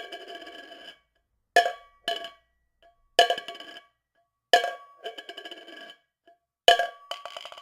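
A metal kitchen object struck again and again, about seven sharp hits in uneven pairs. Each hit rings with a few clear bell-like pitches and trails off in a short rattle.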